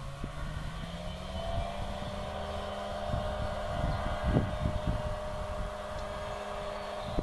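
Engine of a Fisher FP404 light aircraft running steadily, its pitch rising a little over the first second and then holding, with irregular low rumbles of wind on the microphone.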